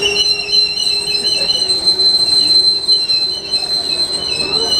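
Steel wheels of passenger train coaches squealing on the rails as the train rolls past at close range. A steady high-pitched squeal begins right at the start and holds on, with shorter wavering squeals below it.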